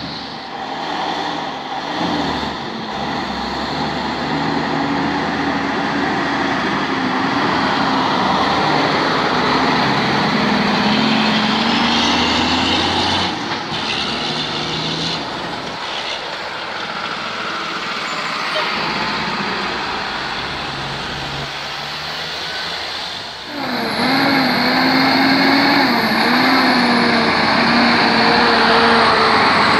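Diesel tractor-trailer trucks passing close by, their engines running with a shifting pitch over heavy road noise. A louder truck engine comes in about three quarters of the way through.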